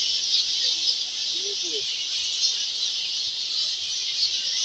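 Dense, steady high-pitched chatter and squeaking of a large colony of straw-coloured fruit bats.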